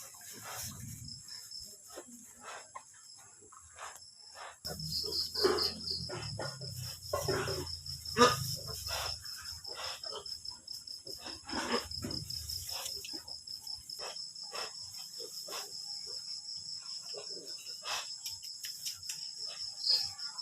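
An insect trilling steadily at a high pitch in rapid pulses, over scattered knocks and rustles that are loudest a few seconds in.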